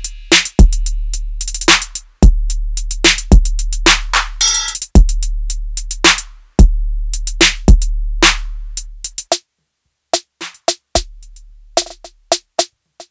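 Background music: a drum-machine beat over deep sustained bass, with the bass dropping out about two-thirds of the way through.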